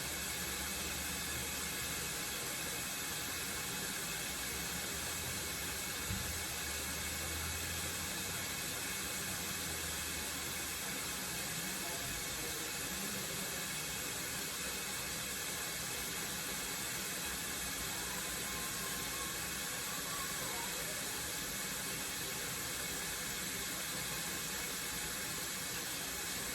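Tap water running steadily into a kitchen sink as it fills, making a constant hiss. There is a single soft thump about six seconds in.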